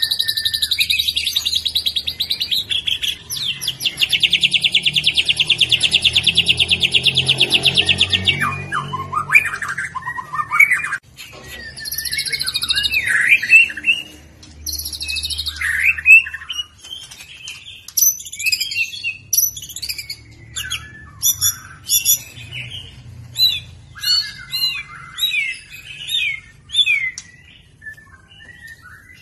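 White-rumped shama singing. It opens with a long, fast, buzzy trill of evenly repeated notes for about eight seconds, then breaks into a varied run of whistled sweeps, slurred notes and sharp chirps.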